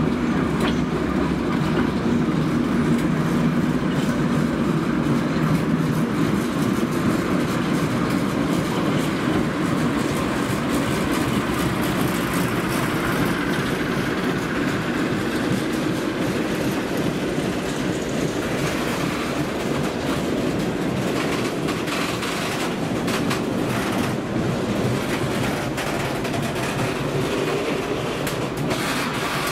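Class 08 diesel shunter's English Electric six-cylinder engine running as it hauls a rake of open box wagons past, its steady note strongest in the first ten seconds or so, then fading. In the second half the wagon wheels clatter and click over rail joints and points.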